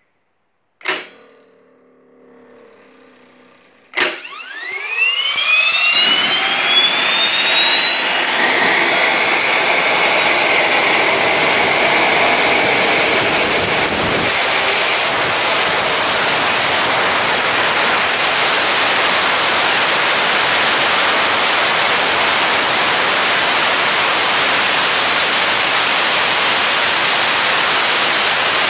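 Tiernay TT10 gas turbine starting up on its first attempt: a click about a second in and a faint hum, then about four seconds in the starter spins the turbine up with a sharply rising whine. Within a couple of seconds a loud steady rushing noise sets in as it lights and runs, its whine still climbing slowly to a very high pitch.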